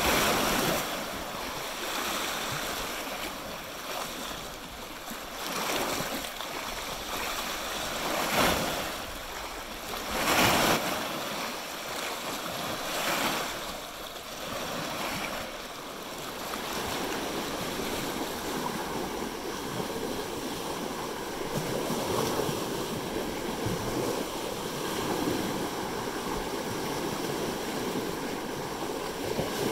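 Small lake waves lapping and washing over flat rock ledges at the shoreline, with two louder surges about eight and ten seconds in.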